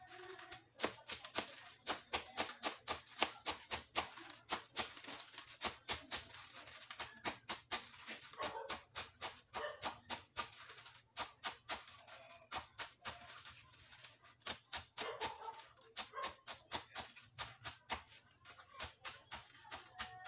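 Kitchen knife chopping mustard greens on a wooden cutting board: a quick, steady run of sharp chops, a few each second.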